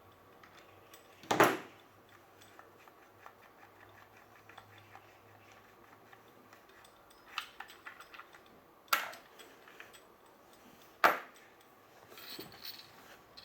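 Small metal parts and tools clicking and clinking while an air-cocking airsoft rifle is taken apart, with three sharp clacks, about a second in, near nine seconds and near eleven seconds, between fainter ticks.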